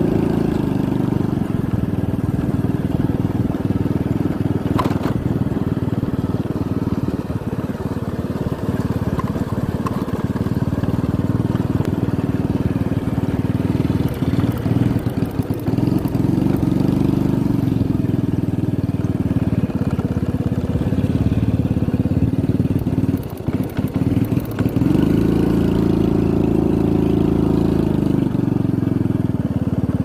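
Motorcycle engine running steadily at low speed along a rough dirt track. The engine note eases off briefly about halfway through and again a little later, then runs stronger for a few seconds near the end.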